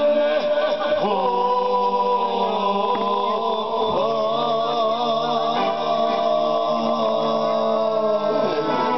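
Men singing a folk song live into microphones through a PA, over electronic keyboard accompaniment, with long held notes sung with vibrato.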